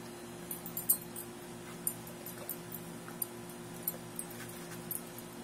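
Mastiff puppy chewing and crunching a partially frozen raw tilapia: sharp, irregular clicks and crunches, the loudest about a second in, over a steady low hum.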